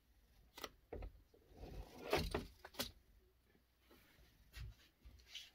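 Close handling noise: a few soft clicks and a burst of rustling about two seconds in, as a finger rubs and presses a cat's paw pads and fur right at the microphone.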